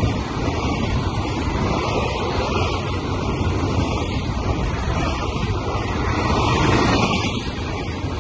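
Intermodal freight train's container wagons rolling past at speed, a steady rumble and rush of wheels on rail. It grows a little louder about three quarters in, then begins to fade as the last wagon goes by near the end.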